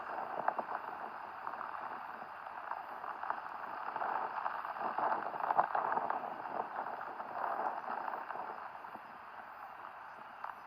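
Heavy rain falling, a steady dense patter of drops.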